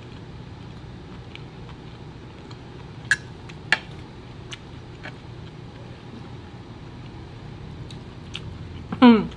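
Metal fork clinking and tapping on a plate while eating: two sharp clinks a little after three seconds in, then a few fainter taps. Near the end comes a short, loud sound with a steeply falling pitch.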